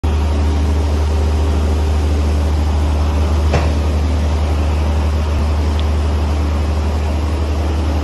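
Sri Lanka Railways class S13 diesel multiple unit running along beside a platform: a loud, steady low rumble of the running gear, with the knock of a wheel that has a flat spot. A single sharp clank comes about three and a half seconds in.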